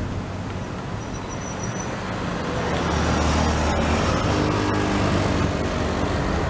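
Airliner's engines at takeoff power during the takeoff roll, a steady rumble that swells about two to three seconds in as the aircraft comes closer and lifts off.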